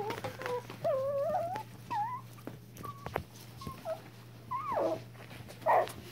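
Pomeranian–Yorkshire terrier cross puppies whining and whimpering: a string of short, wavering high cries, some sliding down in pitch, the loudest near the end.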